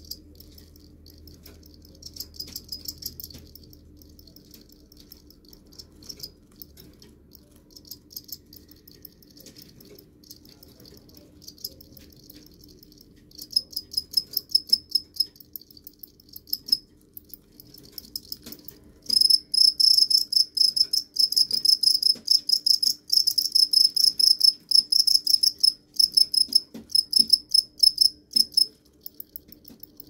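Crickets chirping: trains of rapid, high-pitched pulses, the calling song of males rubbing their wings together. The song comes in scattered short bursts at first, then turns loud and nearly continuous for the last third before stopping shortly before the end.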